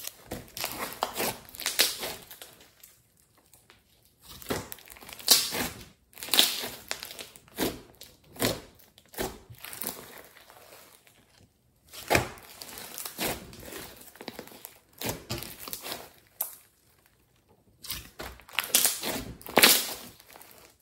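Thick pink clay slime being stretched, squeezed and poked by hand, crackling and squishing in irregular bursts with brief pauses between them.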